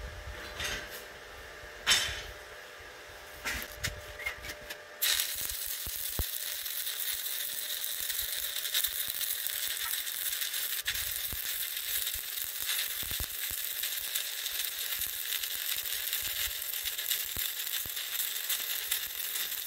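Stick welding arc from a 7018 electrode, striking about five seconds in and then crackling and sizzling steadily. A few sharp clicks and knocks come before the arc starts.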